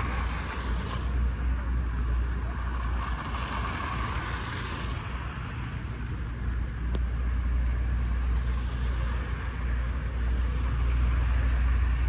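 City street traffic: vehicles passing, their noise swelling and fading several times over a steady low rumble. A single sharp click about seven seconds in.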